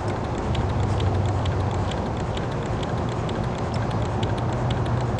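DIY Stirling engine running on stored heat alone, with no sunlight on it, its piston and flywheel mechanism ticking at a quick, even rate.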